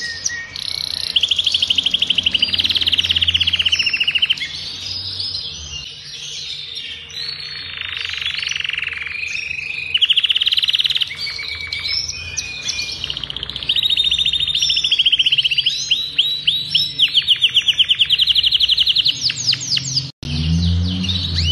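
Adult male domestic canary singing at length in long, fast trills and rolls of rapidly repeated notes. The song breaks off for a moment near the end.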